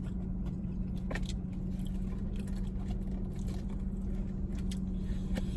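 Steady low hum inside a car with the engine and air conditioning running on low, with a few faint clicks scattered through it.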